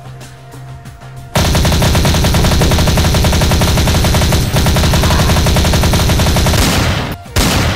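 Automatic machine-gun fire sound effect: a long, loud burst of rapid shots starting about a second and a half in, then a short second burst near the end.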